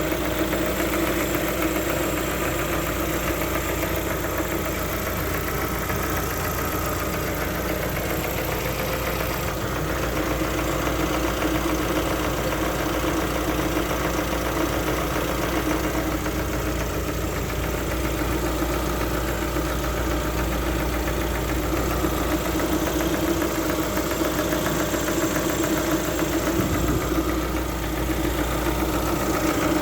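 Lada Vesta's 1.6-litre four-cylinder petrol engine idling steadily with a knock from the cylinder head, which the owner takes for a fault to be checked under warranty.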